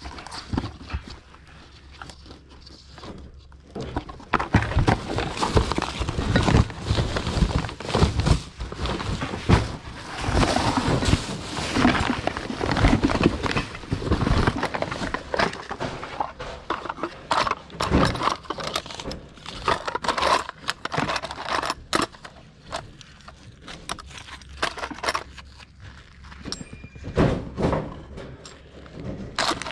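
Objects being handled and rummaged through, making an irregular run of knocks, clatter and rustling, busiest in the first half.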